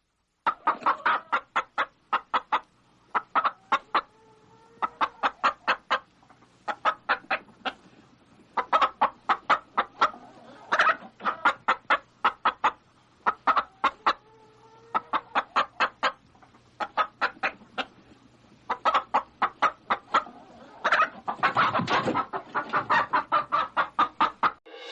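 Hen clucking in quick runs of short clucks, several a second, with brief pauses between runs. Fainter drawn-out calls sound in the background now and then.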